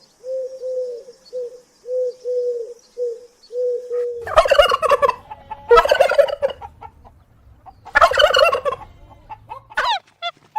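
Farm fowl calling: a run of soft, evenly repeated low notes, then three loud, harsh calls about a second and a half apart. Short sliding calls start near the end.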